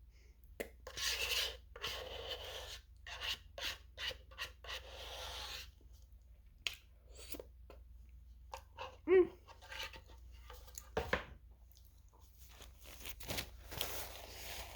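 A spoon scraping and stirring soft, melting ice cream in its container, in a run of short rubbing scrapes and clicks. A short pitched sound about nine seconds in is the loudest moment.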